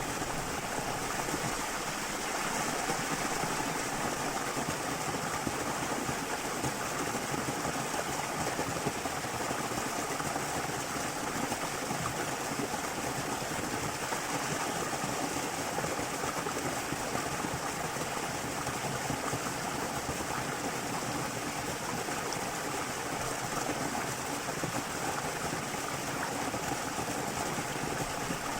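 Steady rush of flowing water at a small waterfall.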